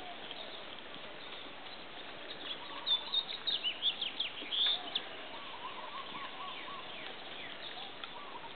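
Small birds chirping: a cluster of quick, high, falling chirps between about three and five seconds in, then a quieter run of repeated lower notes, over a steady outdoor hiss.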